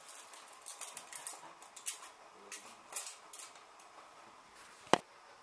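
Small white pellets poured from a plastic cup into a stainless steel saucepan, ticking and pattering lightly on the metal. One sharp click near the end.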